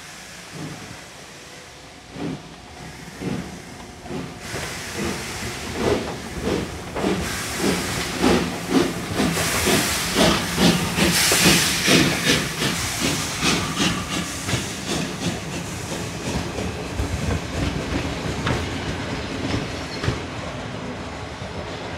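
Pt47 steam locomotive passing close as it draws in, with rhythmic steam beats and hissing that grow louder to a peak about ten seconds in. After that come the steadier rumble and wheel clatter of its coaches rolling by.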